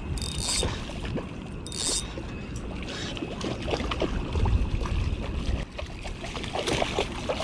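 Water splashing and slapping as a hooked jack crevalle thrashes at the surface in the shallows at the bank, over small waves lapping, with a gust of wind rumbling on the microphone about four and a half seconds in.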